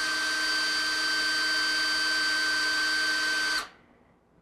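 Cordless drill running at a steady speed, spinning a brushed RC motor armature while a strip of 600-grit sandpaper polishes its copper commutator. The drill stops suddenly about three and a half seconds in.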